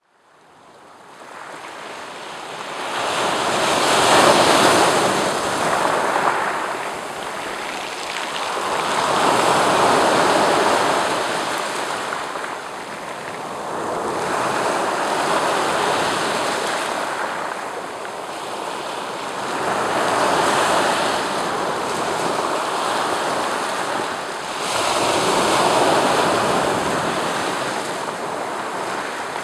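Sea waves breaking and washing up over a beach of rounded dark cobblestones, the surf swelling and ebbing in a slow rhythm about every five to six seconds. It fades in over the first couple of seconds.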